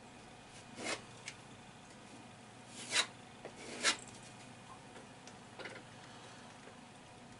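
A filling knife scraping plaster filler across a wall: a handful of short scraping strokes, the loudest about three and four seconds in.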